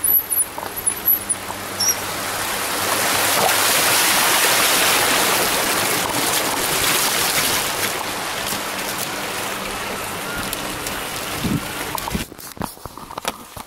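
Rushing water of a mountain stream, an even hiss that swells to its loudest about four seconds in and slowly eases as the bike rolls along beside it. Near the end it drops off suddenly, leaving scattered clicks.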